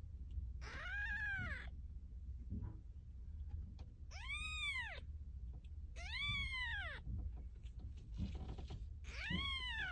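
Newborn Persian kittens mewing: four separate thin cries, each about a second long, rising and then falling in pitch.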